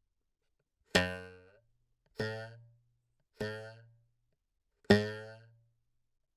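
A taut wire struck four times, about a second apart. Each strike gives a pitched, guitar-like twang that rings and dies away in about half a second.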